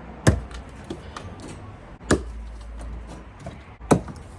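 Steel head of a long-handled reprofiled axe, an old True Temper head, striking into firewood logs three times, about two seconds apart, as it is sunk into the wood to hook and pull it.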